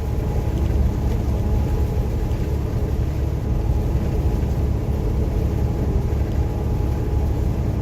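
Steady engine drone and tyre noise inside a truck cab travelling on a wet highway in heavy rain.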